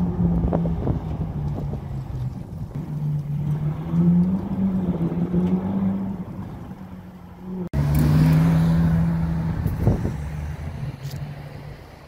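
Supercar engines running and revving, the engine note shifting up and down. About two-thirds through, a cut brings in a louder car engine that fades as the car drives off.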